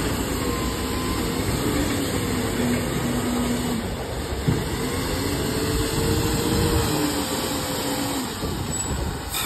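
LiuGong 856H wheel loader's diesel engine working under load, its revs rising and falling as the machine drives and lifts a bucket of coal. A sharp knock about four and a half seconds in.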